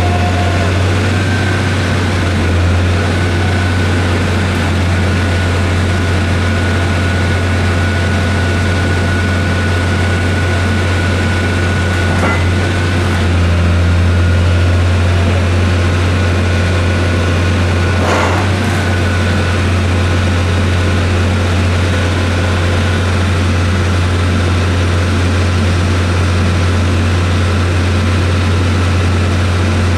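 Heavy lifting machinery running steadily, a loud low hum with a thin high whine over it, while a hydraulic orange peel grab hung from a crane closes its tines. Two brief knocks come through, about twelve and eighteen seconds in.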